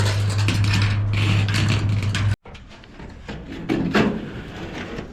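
A steady low motor hum with clattering over it, cut off sharply about two and a half seconds in; after that, quieter scattered knocks and rattles of building material being handled.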